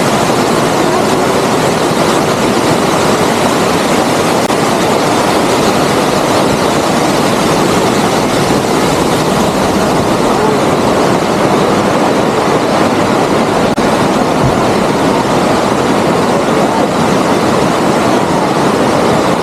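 Waterfall pouring into its pool: a loud, steady rush of falling water.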